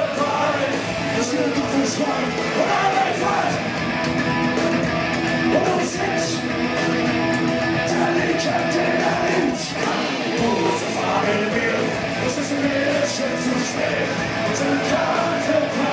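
Punk rock band playing live: electric guitars, bass and drums with a singer's vocals, continuous and loud.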